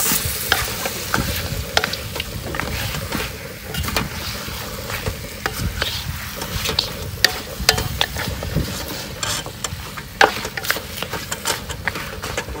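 Chunks of marinated goat meat frying in a metal wok, stirred with a wooden spatula: irregular scrapes and knocks of the spatula against the wok over a steady sizzle.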